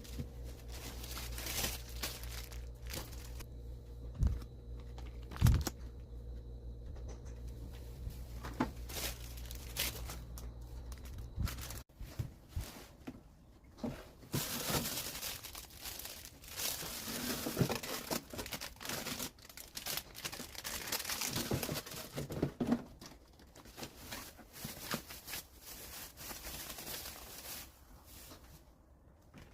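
Crinkling and tearing of packaging being handled, in irregular bursts that are busiest in the second half. A low steady hum runs under the first twelve seconds or so and then cuts off suddenly.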